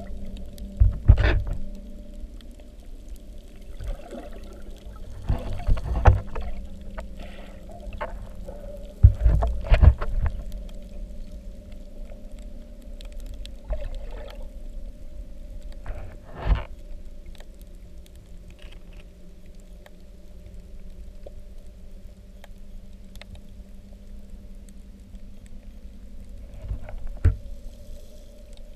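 Underwater sound picked up by a submerged camera: a steady low hum with several short muffled thumps and rushes, the loudest about a second in and around nine to ten seconds in.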